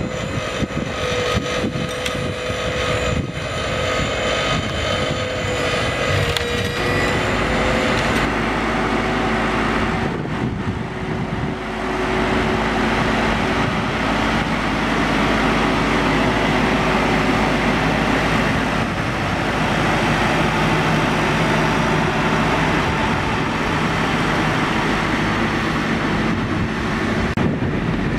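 Farmtrac tractor engine running with a Rolmex KR520 hydraulic reach mower working, its flail head and drive giving a steady whine for the first several seconds. From about eight seconds the sound turns into a rougher, louder, more even machine noise.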